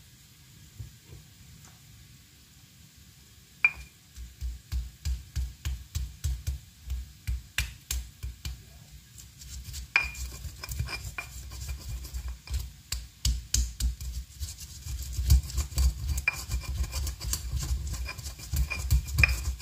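Stone pestle grinding and crushing garlic, shallots, candlenuts and peppercorns with salt in a stone mortar (Indonesian cobek and ulekan), making a spice paste. It starts about four seconds in as rhythmic strokes of about two a second with sharp clicks of stone on stone, then becomes faster and louder grinding from about halfway.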